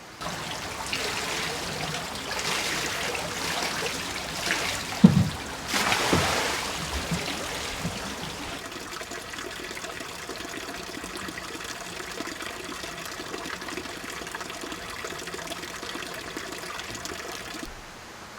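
Water of a spring-fed waterfall trickling and splashing over rocks close by, with a few gurgling plops about five to six seconds in, settling into a steadier trickle from about nine seconds.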